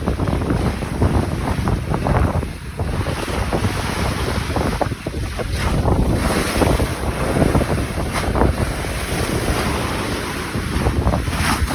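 Large sea waves crashing and splashing against a concrete seawall parapet, surging again and again, with spray hitting several times. Heavy wind buffets the microphone throughout.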